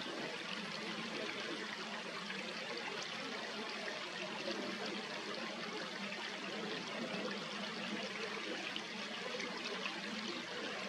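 Steady trickling and rushing of running water, even throughout with small flickers.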